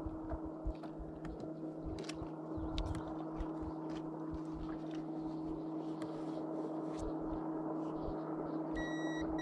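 A steady electric hum with low gusts of wind on the microphone and faint clicks of handling. Near the end a digital fish scale beeps twice in quick succession as it settles on the fish's weight.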